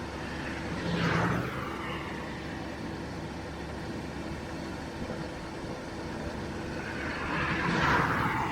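Two vehicles passing by on a road, one about a second in and a louder one near the end, each swelling and fading, over a steady low engine hum.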